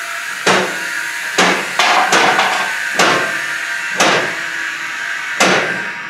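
Shop lift table being raised: a steady hissing run of the lift with about seven sharp metal clacks, roughly one a second, as it climbs.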